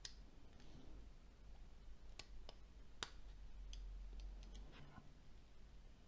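A string of small, sharp clicks, with the loudest about halfway through and a quick cluster just after, as small parts of a Nokia C6-00 smartphone are handled and fitted together during reassembly.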